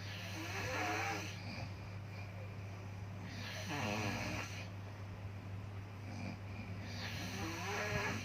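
Snoring: three long, wavering snores about three and a half seconds apart, one with each breath, over a steady low hum.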